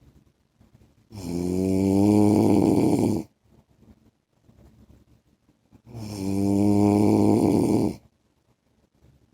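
A man snoring in his sleep: two long, rough snores of about two seconds each, a little under five seconds apart, each rising slightly in pitch as it starts.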